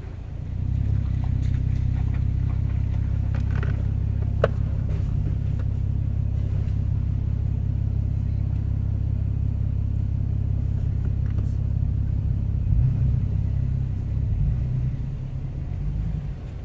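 Off-road truck engine running steadily at low speed, a low rumble as it crawls a rocky climb. A single sharp knock comes about four and a half seconds in, and the engine note eases near the end.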